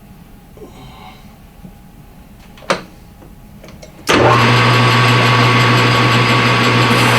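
A sharp clack, then about four seconds in a metal lathe's electric motor switches on and runs with a steady hum.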